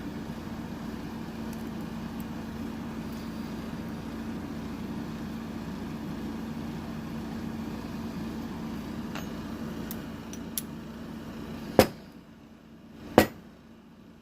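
A steady mechanical hum runs and stops abruptly about twelve seconds in. Two sharp metal knocks follow near the end, from working the core out of a Kaba padlock.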